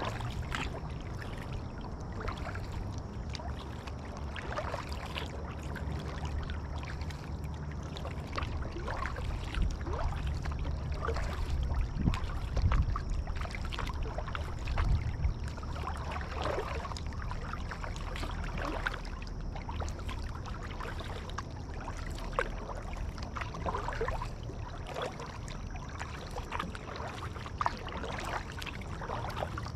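Kayak paddling: the paddle blades dip and pull through the water in repeated splashes, with water trickling and dripping, over a steady low rumble.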